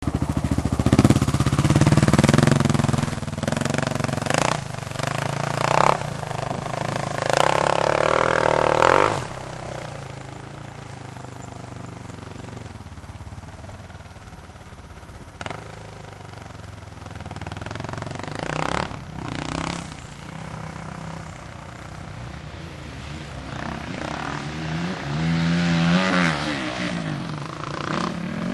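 Motocross dirt bike engines revving, loudest in the first nine seconds as bikes pass close by. Through the middle the engines are fainter and further off, and one revs up and back down again near the end.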